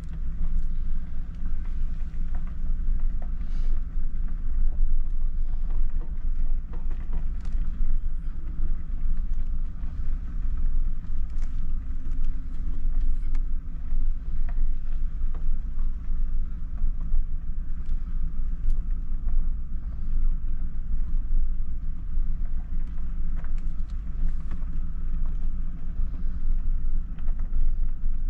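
Large vehicle's engine and road noise heard from inside the cab as it is driven slowly, a steady low rumble with scattered faint clicks.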